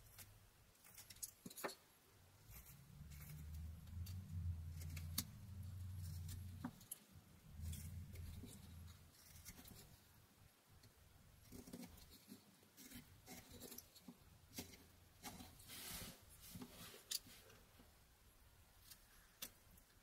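A Rough Rider pocket knife blade slicing small chips from a pine carving: faint, irregular cutting clicks and scrapes. A low hum comes in and fades away during the first half.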